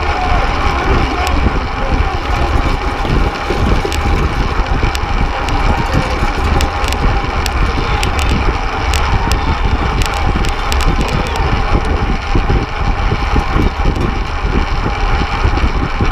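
Steady rush of wind buffeting the microphone of a camera mounted on a fixed-gear track bike racing at speed, over the constant whir of its chain and tyres, with scattered light ticks and clicks.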